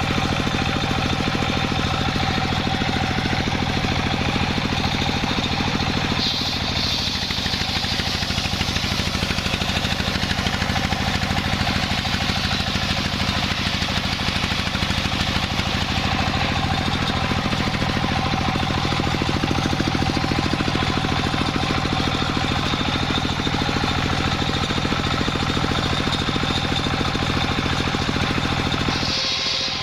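The engine of a wood sawmill runs steadily at constant speed, with a rapid even firing beat and saw noise above it. It breaks off briefly near the end.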